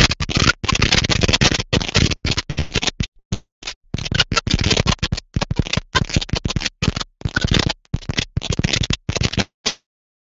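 Ground fountain firework spraying sparks, a loud hissing crackle that keeps breaking up into short stretches and cuts off near the end.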